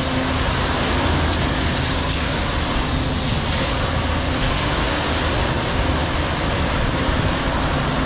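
Water jet from a hose nozzle hissing steadily as it sprays against the steel blades and inside of a concrete mixer drum during wash-down, with the truck's engine running underneath as a steady low hum.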